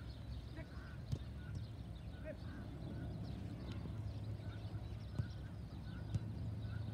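Three sharp thuds of a football being kicked, about a second in, then twice near the end, over a steady low rumble and faint distant shouts of children playing.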